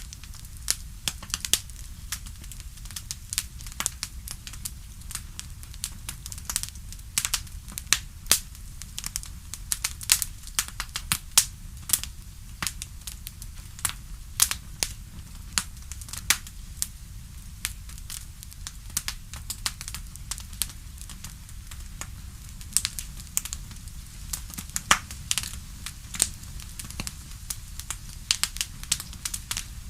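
Wood fire crackling: many sharp pops and snaps, several a second and irregular, over a steady low rumble.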